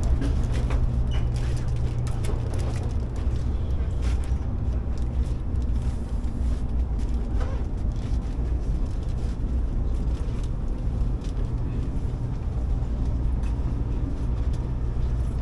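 Steady low rumble of ambient noise on a high-speed rail station platform, with a few faint clicks.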